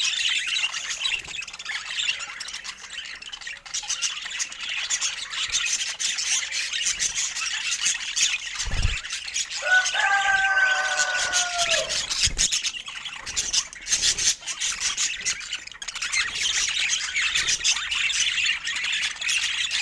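Budgerigars chattering and chirping without a break, with one longer, slightly falling call about ten seconds in. Two dull low thumps come near the nine- and twelve-second marks.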